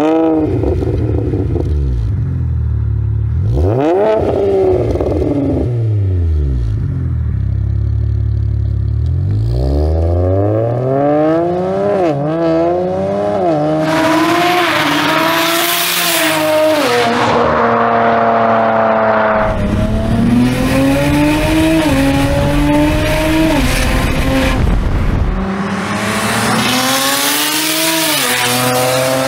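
2009 BMW 135i with a single-turbo N54 inline-six, its engine and exhaust revved in sweeps up and down, then pulling hard through several quick upshifts: the pitch climbs and drops back at each shift. Twice a loud rushing hiss swells as the car passes close.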